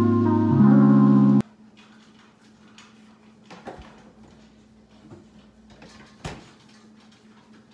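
Background music that cuts off abruptly about a second and a half in. Then quiet kitchen handling sounds at a refrigerator: faint clicks and knocks as a bottle is taken out, with one sharper knock near the end.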